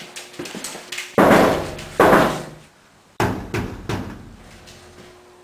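Three loud bangs about a second apart, each dying away over most of a second; the last fades more slowly.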